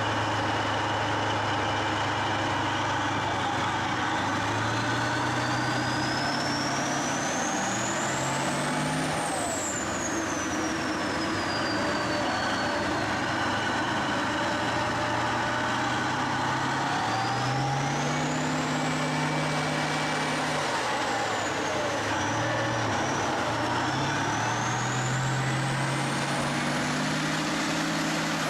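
A heavy vehicle's engine running and revving, its pitch climbing in steps and dropping back three times, each rise joined by a high whine that rises and falls.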